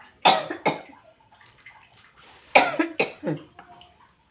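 A person coughing in two fits: two coughs just after the start, then three more about two and a half seconds in.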